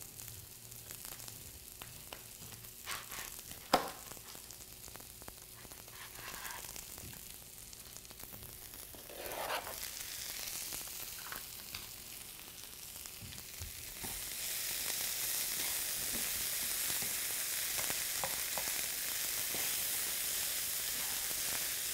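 A few sharp knife taps as corn kernels are cut off the cob onto a cutting board. Then, about two-thirds of the way in, a steady sizzle of corn, squash and beans frying in a skillet rises, with a plastic spatula stirring them.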